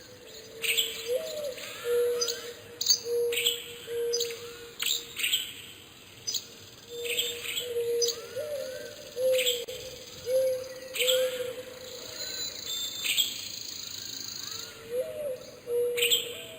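Several birds calling at once: many short, sharp high chirps throughout, over a low, short call repeated again and again.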